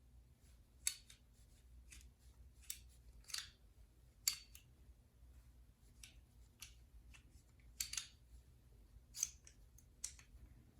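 Light metallic clicks and clinks at irregular intervals, about a dozen, as the steel slide, barrel and guide rod of a field-stripped Citadel M1911 pistol are handled and knocked together.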